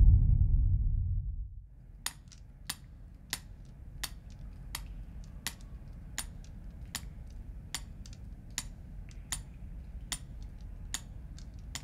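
A low rumble dies away in the first second and a half. Then come sharp, regular ticks, about three every two seconds, over a faint low hum.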